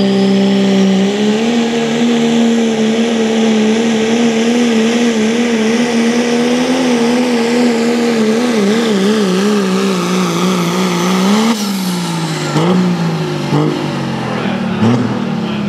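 Turbocharged Cummins diesel in a second-generation Dodge Ram pulling truck running flat out under load as it pulls the sled, a steady high engine note with a high whine over it. Near the end the pitch wavers as the truck bogs and hops, then about three-quarters of the way in the engine drops off and winds down as the pull ends.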